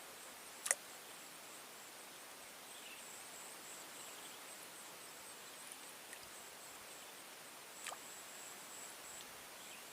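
Faint swamp ambience with a steady, high-pitched insect trill, broken by two sharp clicks, one under a second in and one near the end.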